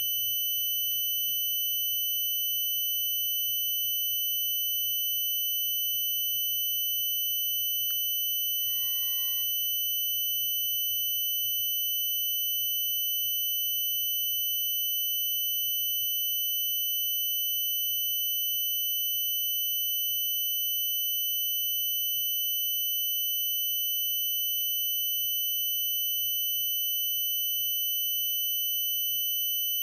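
A steady, high-pitched electronic tone held without a break at an even level. About nine seconds in, a brief cluster of lower tones sounds.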